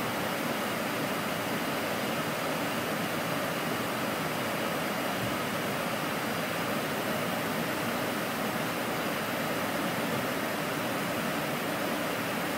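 Steady rushing background noise on an Airbus A310 flight deck, even and unchanging in level.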